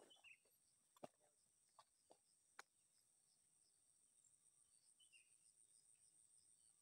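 Near silence: a faint, steady, high-pitched insect drone, with a few soft clicks in the first three seconds and a short falling bird chirp near the start and again about five seconds in.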